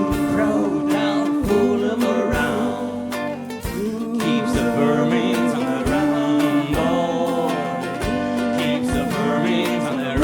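Live band playing an instrumental passage of a film-music medley: drum kit hitting steadily under bass and guitar, with a sustained melody line on top.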